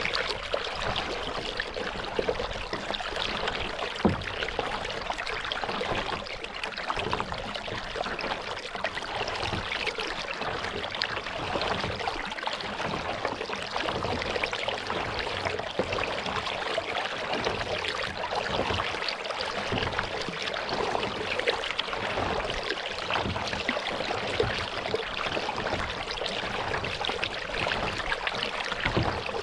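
Steady trickling and lapping of lake water around a paddled kayak, with a single light knock about four seconds in.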